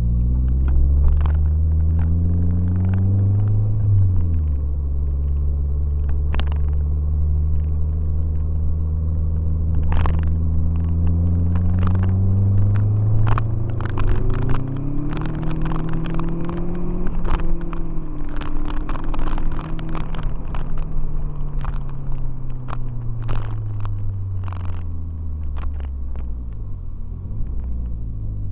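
Car engine heard from inside the cabin under hard acceleration. The revs climb, drop sharply with a gear change about four seconds in, and hold. They climb again for several seconds, then wind slowly down as the car slows. Short clicks and knocks come through the cabin throughout.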